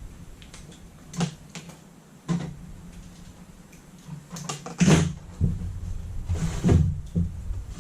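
A series of sharp clicks and knocks from hand tools and wiring being worked, with a short scraping rustle a little before the end, over a steady low hum.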